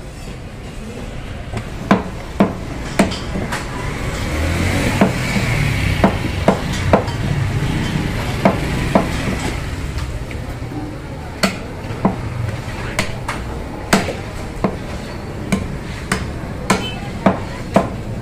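Meat cleaver chopping beef on a wooden tree-stump block: sharp, irregular chops at roughly one or two a second, with a short pause partway through, over steady background noise.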